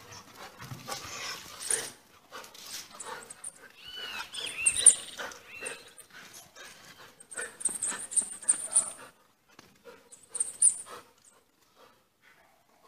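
A pet dog moving about with irregular scuffling and clicks, and a few short, curving high-pitched sounds about four to five seconds in.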